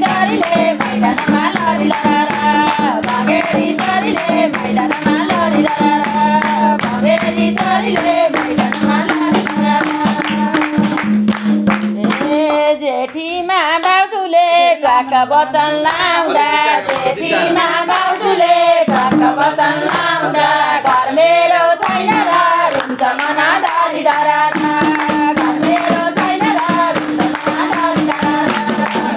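Group singing of a Nepali Teej folk song, accompanied by a madal hand drum, a jingling tambourine and hand-clapping in a steady rhythm. A steady low drone sounds under the singing, drops out about twelve seconds in and comes back near the end.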